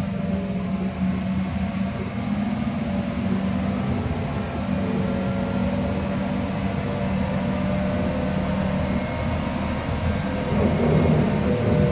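Inside a trolleybus under way: the electric traction drive's steady hum over tyre and road rumble, a little louder near the end.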